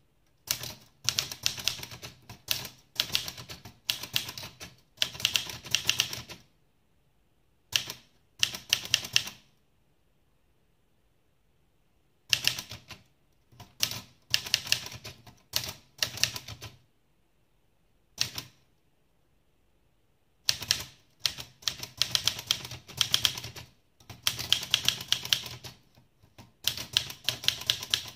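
Restored Olivetti Lettera 32 manual portable typewriter being typed on: quick runs of sharp type-bar strikes against the platen, broken by pauses of a second or two.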